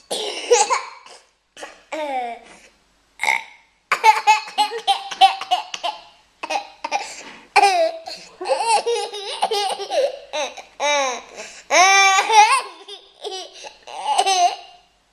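Children laughing in repeated high-pitched fits.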